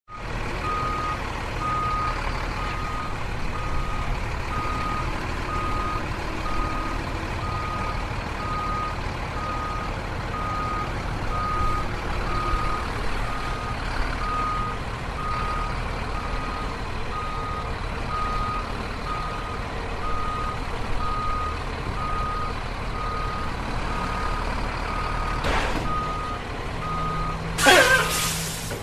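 Truck reversing, its engine running low under a reversing alarm beeping about once a second. Near the end it stops with a short loud burst of brake squeal and hiss, and the beeping ends.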